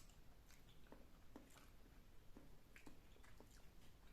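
Near silence with faint, irregular small wet clicks and smacks: someone chewing a mouthful of avocado.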